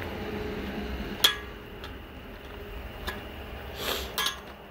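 Sharp metallic clicks and clinks, the loudest a little over a second in and a pair near the end, with a short scraping rush just before them, as a rod is worked down the barrel of a homemade air gun.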